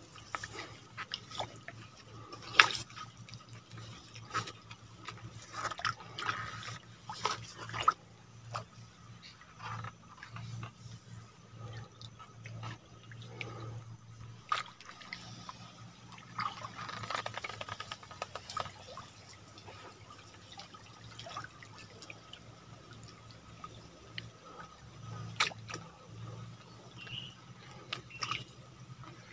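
Irregular small drips and splashes of water on a muddy river's surface, with one sharper click about two and a half seconds in, over a faint steady low hum.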